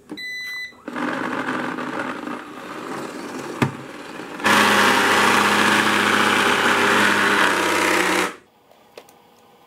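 Eufy robot vacuum switching on with a short electronic beep, then its motors whirring. About halfway through it jumps to a much louder steady whir with a low drone, then cuts off suddenly near the end. The excessive noise has not been cured; the owner blames a failed O-ring or belt drive in a sealed housing inside.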